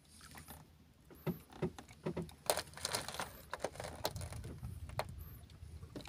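Light splashing and water lapping beside a small outrigger boat as a gaff hook is dipped into the sea, with scattered small clicks and knocks.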